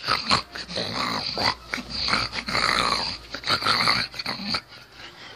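Young puppy growling in short, irregular bursts while play-biting at a hand.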